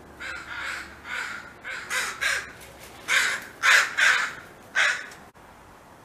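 Crows giving territorial alert caws: a rapid series of about ten caws, louder in the second half, stopping abruptly about five seconds in.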